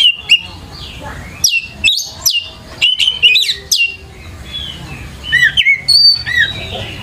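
Oriental magpie-robin singing loudly, in bursts of sharp, quickly falling whistled notes with short pauses between phrases.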